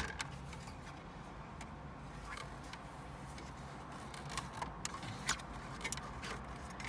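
Plastic dashboard trim panel being pulled loose: a sharp click at the start, then scattered faint clicks and rattles of plastic clips and trim. A steady low hum runs underneath.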